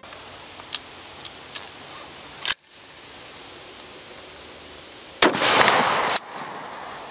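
UZKON AS13 shotgun fired once about five seconds in: a loud blast with about a second of echo that breaks off abruptly. Before it there are a few small clicks.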